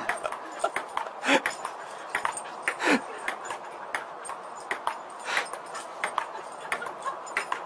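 Table tennis ball clicking sharply off the table and paddles in a quick, uneven rally, while a dog beside the table whines excitedly, loudest about a second and a half in and again about three seconds in.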